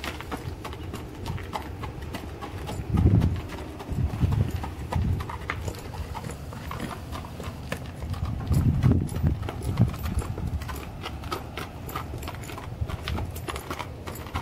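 A blue roan mare's hooves crunching and clopping on gravel as she is walked on a lead, in an uneven run of sharp steps, with the handler's boot steps among them. A few louder low thuds come through, the strongest about three seconds in and again about nine seconds in.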